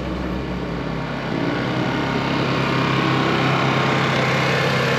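A van's engine running steadily at low speed, a little louder from about a second and a half in.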